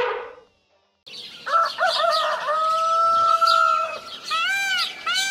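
Music fades out, and after a brief silence come cartoon bird sound effects. There are chirps, then a rooster crowing with a long held final note, then a quick series of short, arching calls, about two a second.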